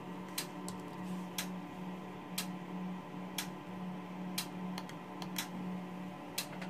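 A relay switched by a Siemens S5 PLC output, clicking in a steady rhythm with a sharp click about once a second and a fainter one in between. It is pulling in and dropping out every half second on the PLC's 500 ms flip-flop timers. A steady low hum runs underneath.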